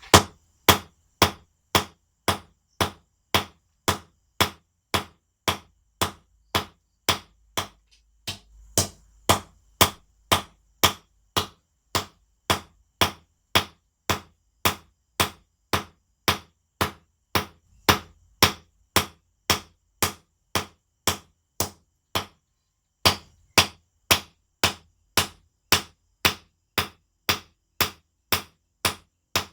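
Hammer blows on a forge-heated steel cable billet on an anvil, struck at a steady pace of about two a second, each a sharp ringing hit. Two brief pauses break the run, about a quarter of the way in and about three-quarters of the way in.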